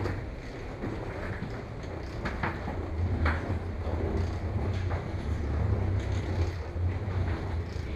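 Wheeled suitcases rolling along a jet bridge floor: a steady low rumble with a few short clicks and knocks.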